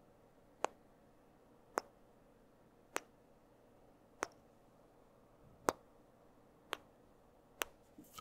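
Sharp single mouth clicks close to the microphone, tongue clicks of the 'tk' kind, about one a second, seven in all.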